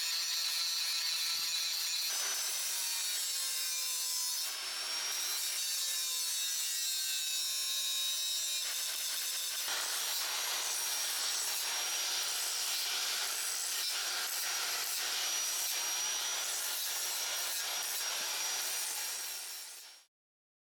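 Power tool working scrap steel: a steady, high-pitched grinding noise with whining tones that shift in pitch now and then, fading out near the end.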